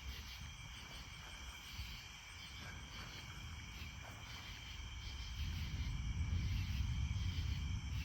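Crickets and other night insects chirping in a steady chorus, under a low rumble that grows louder about five seconds in.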